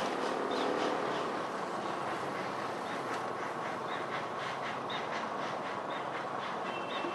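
Narrow-gauge train running, with a fast even beat of about four to five a second and a short high squeak about once a second. A thin high tone comes in near the end.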